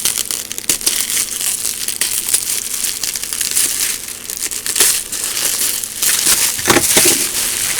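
Plastic packaging crinkling and rustling as it is pulled off by hand, in quick irregular crackles.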